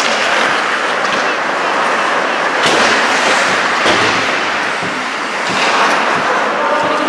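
Ice hockey play on an indoor rink: skates scraping the ice with sticks and puck clacking, and a sharp knock about two and a half seconds in.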